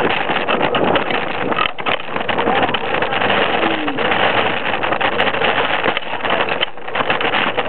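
Soap box cart rolling fast over a street: a steady rush of wind buffeting the onboard microphone mixed with the rumble of the wheels, full of small clicks and knocks.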